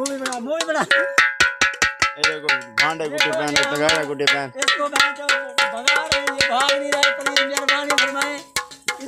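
A metal pot beaten rapidly with a stick, about five ringing clangs a second, to drive off a locust swarm from the crop.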